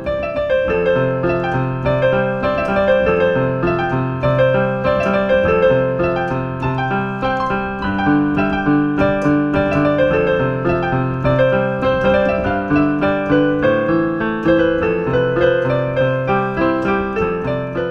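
Piano music with a steady, even run of notes.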